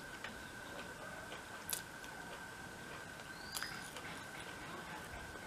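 Faint soft clicks of fingers working cooked rice on a glass plate, a couple standing out just under two seconds in and again about three and a half seconds in. A steady faint high whine runs under them, and a faint short chirp comes with the second click.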